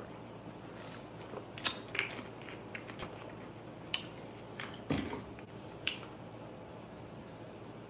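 Small handling noises: a scattered handful of short clicks and taps, with a soft thump about five seconds in, over a steady room hum.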